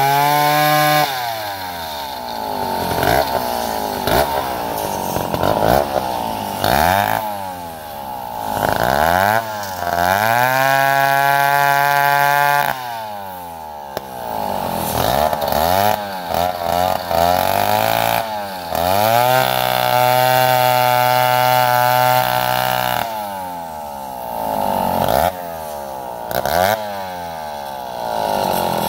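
Two-stroke Stihl chainsaw revving up and dropping back many times as it cuts through felled wood. Two longer stretches are held at high revs, about ten and nineteen seconds in.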